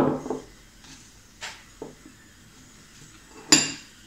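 Metal fork clinking against a ceramic salad bowl: a clink right at the start, a couple of faint taps, then a sharper, ringing clink about three and a half seconds in as the fork is set down in the bowl.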